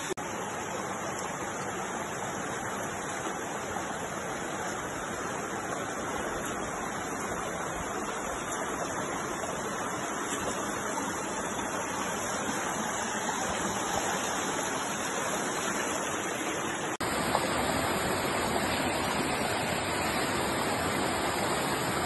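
Steady rush of a rocky stream and small waterfall; about seventeen seconds in the rush jumps abruptly to a slightly louder level.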